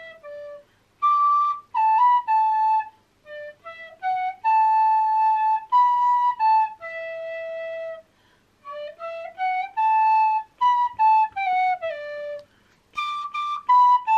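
A small end-blown fipple flute playing a slow, simple melody one note at a time, stepping up and down with short pauses between phrases and a note held for about a second in the middle.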